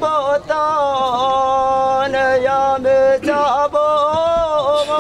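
A man chanting a traditional Kedang welcome greeting for guests, solo, in long held notes that glide between pitches, with a few short breaks for breath.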